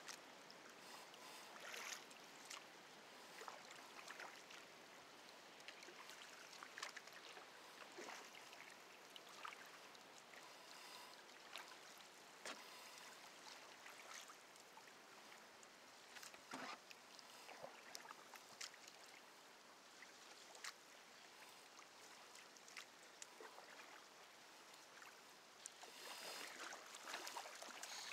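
Faint water lapping and trickling around a canoe hull, with small irregular splashes and drips, a little busier near the end.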